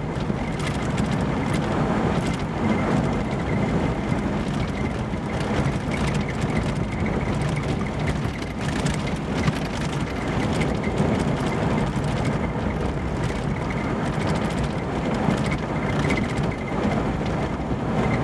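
A car driving on a graded dirt road, heard from inside the cabin: steady tyre and engine noise, with scattered small clicks.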